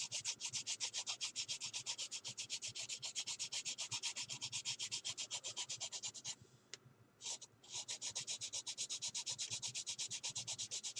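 Sanding stick rubbed back and forth over a scale model car body in quick, even strokes, about five a second, smoothing down cured super-glue (CA) filler in a seam. The strokes stop for a moment about six seconds in, then resume.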